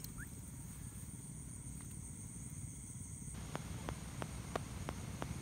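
Night insects trilling steadily at a high pitch. A little past halfway, a run of sharp, evenly spaced clicks starts, about three a second.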